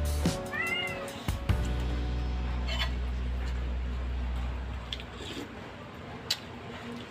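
Domestic cat meowing once about half a second in, a short call that rises and falls in pitch, over background music with a steady low bass.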